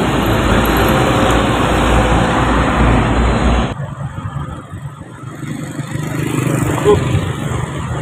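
Hino FM 260 J truck's diesel engine running loud as the truck passes close by. About three and a half seconds in, the sound stops abruptly and gives way to quieter street traffic with motorcycles.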